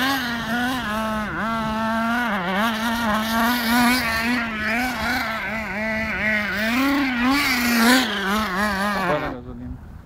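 Small nitro glow engine of a RedCat Tornado RC car running during break-in on its first tanks, its pitch wavering up and down with small throttle changes. It cuts off suddenly about nine seconds in.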